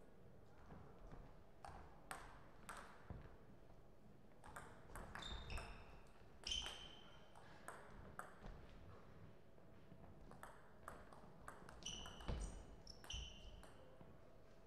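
Celluloid-type table tennis ball clicking off rubber bats and bouncing on the table in a rally, a series of sharp irregular clicks, some with a short ringing ping.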